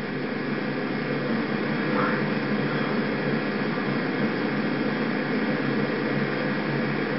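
Steady hiss with a low hum underneath, with no voice or distinct event.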